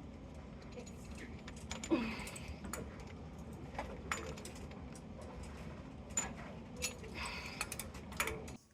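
Scattered light clicks and metallic clinks of tools and parts being handled during installation work, over a low steady hum.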